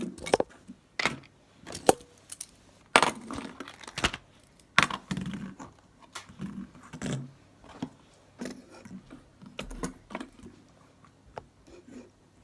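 Fidget spinners being set down one after another on a hard surface: irregular clicks, knocks and metallic clinks. They come thickest in the first five seconds and more sparsely after.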